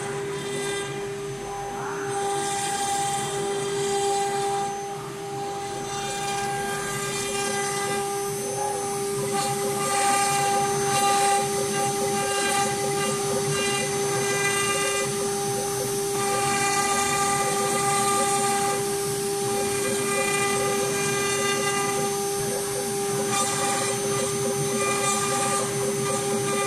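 CNC router spindle running at a steady speed while engraving letters into a wooden board: a steady whine at one pitch. Higher tones and cutting noise come and go as the head moves along the letters.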